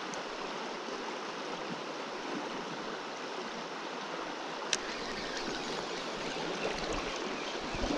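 Shallow river water rushing steadily over a gravel riffle, a continuous even rush of noise. A single sharp click about five seconds in.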